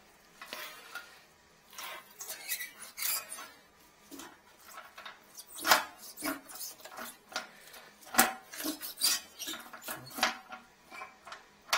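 Irregular clicks, clatters and knocks of hard objects as a drain inspection camera's cable is fed into a toilet and its kit handled, with the sharpest knocks a little before the middle and about two-thirds of the way through.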